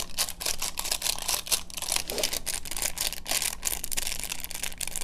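Sesame seeds being shaken out of their container: a rapid, irregular run of small clicks and rattles.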